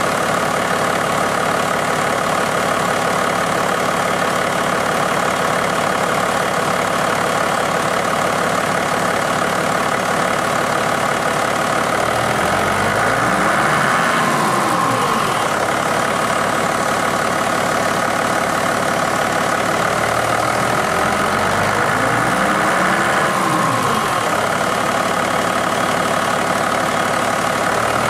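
Komatsu FD40-5 forklift's diesel engine idling steadily, then revved up and let back down to idle twice, about halfway through and again near the end.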